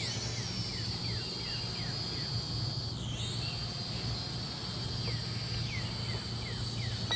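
Small SP600 quadcopter hovering, its motors and propellers giving a steady high whine. The pitch dips sharply and recovers about three seconds in.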